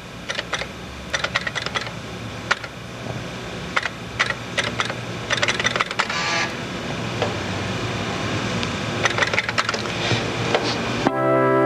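Irregular clusters of key clicks from the Fairlight CMI's computer keyboard as commands are typed in, over a low steady hum. Just before the end, a sequence starts playing back: a sustained, organ-like synthesizer chord.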